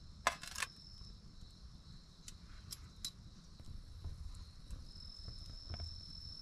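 A metal mug set down on a thin metal sheet with a couple of sharp clinks right at the start, then a few small pops and crackles from a wood campfire. Behind them a steady high insect trill comes and goes.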